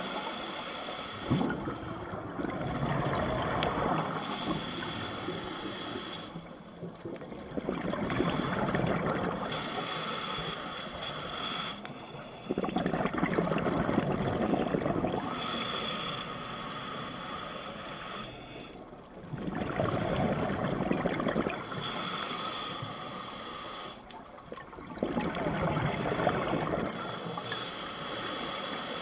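Scuba diver breathing through a regulator underwater, picked up by a GoPro in its housing: five spells of exhaled bubbles, about one every six seconds, with a quieter inhalation hiss between them.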